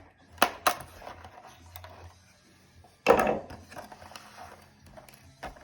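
Small hard parts being handled on a table while unpacking a weapon light and its Allen key: a couple of sharp clicks near the start, then a louder scrape and rattle about three seconds in, with light ticks around it.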